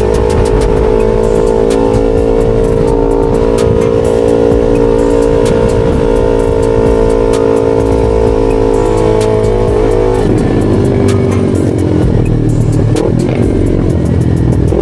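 Yamaha R3 sport bike's parallel-twin engine running on a ride, with music playing over it. A steady pitched note holds for about ten seconds, then changes to a rougher sound.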